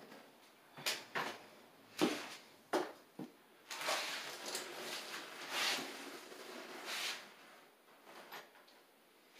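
Several sharp knocks and clunks as someone steps down a metal step ladder, then a few seconds of rustling and scraping as tools are handled on the ladder's top, with one small click near the end.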